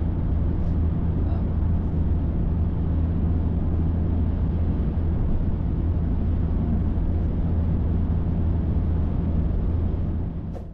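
A car driving at speed, heard as a steady low drone of engine and road noise that fades out near the end.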